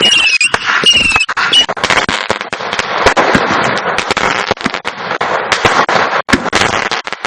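Fireworks going off: short whistles in the first second or so, then a dense, continuous crackling with many sharp cracks for several seconds, like a crackle-effect firework.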